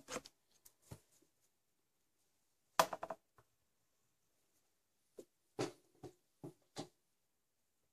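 Pencil scratching on drawing paper in short separate strokes, with a quick cluster of strokes about three seconds in and several more after five seconds.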